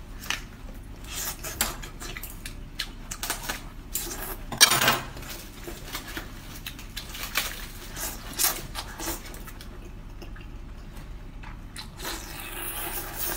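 Eating-show handling sounds: scattered clinks and taps of skewers and dishes, with one louder knock about four and a half seconds in. Near the end come mouth sounds of food being bitten off a skewer.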